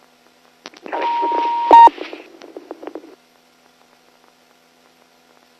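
A police radio channel keyed up without speech: about a second of radio static carrying a steady tone, ending in a short loud beep, then fading out within a couple of seconds.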